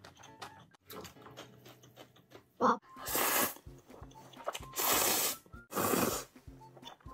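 Spicy instant noodles slurped in three long loud draws from about three seconds in, with small chewing clicks between. A brief sharp sound comes just before the first slurp, and quiet background music runs underneath.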